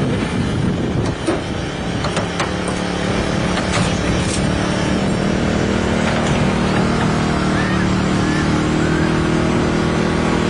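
Engine-driven hydraulic power unit for rescue tools running steadily under load while the cutter or spreader works on a car door, with a few sharp clicks in the first few seconds.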